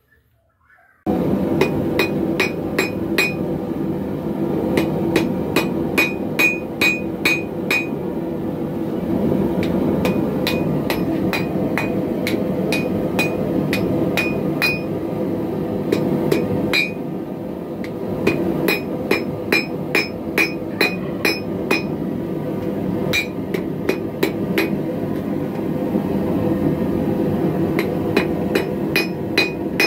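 Hammer blows on a red-hot railroad spike on a steel anvil, starting about a second in and coming in runs of about two a second with short pauses. Each strike gives a bright, short ring. A steady low rushing noise runs underneath.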